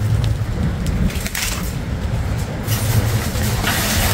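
Urban background noise: a steady low rumble, with a hiss that comes up about three seconds in.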